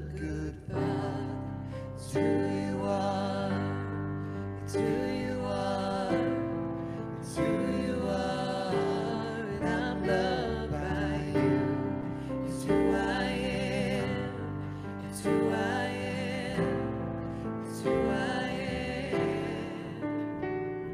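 Slow worship music: a singer's voice with vibrato over sustained keyboard chords that change about every two and a half seconds.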